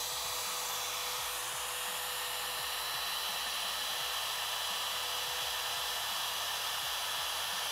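Compact wood router running steadily at full speed with a high whine, making a shallow first pass into a butcher block board.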